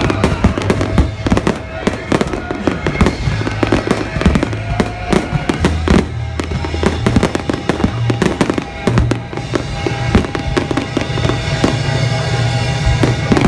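Aerial firework shells bursting in quick succession, a dense run of bangs and crackles, with music playing underneath.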